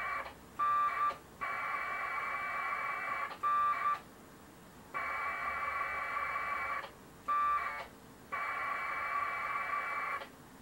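1200-baud AFSK packet radio data bursts heard over a radio's speaker: hissing two-tone modem bursts of about two seconds each. Each is followed by a shorter, louder burst, in a repeating back-and-forth exchange as the shell output is sent over the link.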